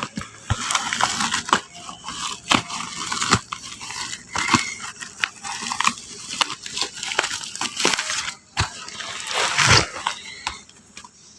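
Packaging being handled and opened: irregular crinkling and crackling with many sharp clicks and taps.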